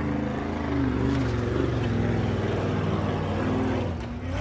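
Ultra4 race car's engine revving up and down under load as it crawls over boulders; the pitch rises and falls unevenly with the throttle.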